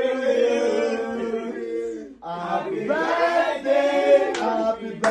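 A group of people singing together in unison, with a brief break about two seconds in before the singing picks up again.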